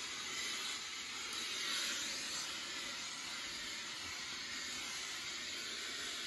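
Conair Steam & Iron 2-in-1 Turbo handheld garment steamer hissing steadily as it blows steam onto a wrinkled shirt.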